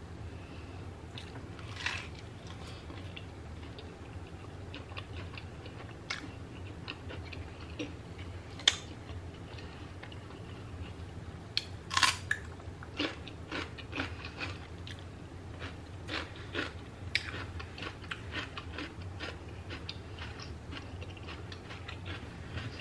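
A person chewing and biting food close to the microphone: soft wet mouth clicks with several sharp crunches, the loudest about halfway through, over a low steady hum.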